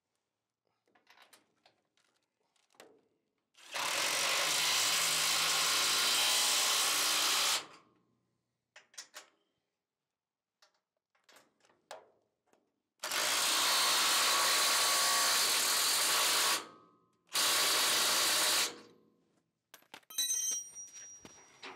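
Cordless DeWalt impact wrench running bolts tight through a steel trailer deck, in three runs of about four seconds, three and a half seconds and just over a second, with the clicks and clinks of a hand wrench on the bolt heads between them.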